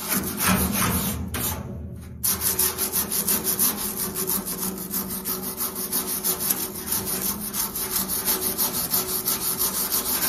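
Wire brush scrubbing old tape sealant off the steel gauge fitting of a heating-oil tank. It goes in rapid back-and-forth strokes, several a second, with a brief pause about two seconds in.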